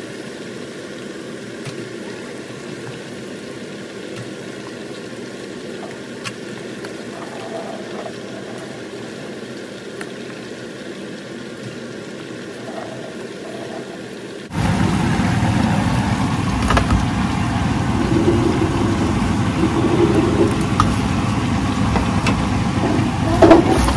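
Samosas deep-frying in a pot of oil: a steady sizzle over a low hum. About 14 seconds in, the sound cuts abruptly to a louder, rougher steady noise.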